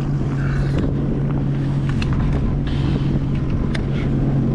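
2022 Sea-Doo FishPro Sport 170 personal watercraft's engine running at a steady idle, a constant low hum, with a few sharp clicks from tackle about two seconds in and near the end.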